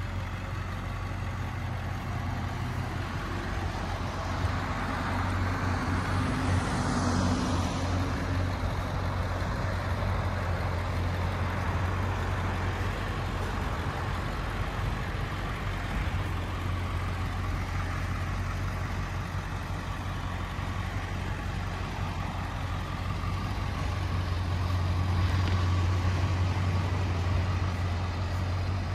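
A 2002 Ford F-350's 7.3L Power Stroke V8 turbo diesel idling, a steady low drone that grows a little louder near the end.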